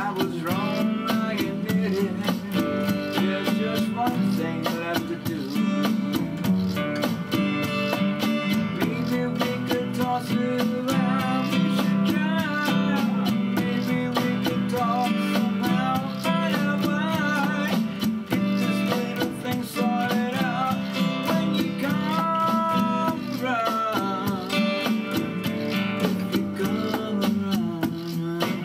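Music: a song on strummed acoustic guitar, with a wavering melody line over the chords.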